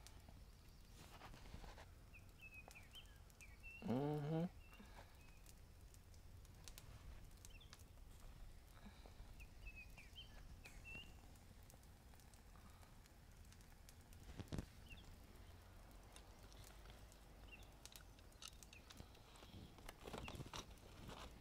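Quiet woodland ambience: faint bird chirps and scattered light clicks and taps as kebab skewers are turned on a wire grill rack over a campfire. A brief low vocal sound, a short hum with a wavering pitch, stands out about four seconds in.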